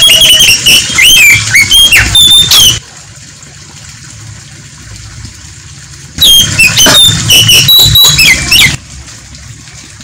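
Oriental magpie-robin (kacer) singing: two loud bursts of rapid, varied whistles and chirps, each about two and a half seconds long, with a quiet pause of about three seconds between them.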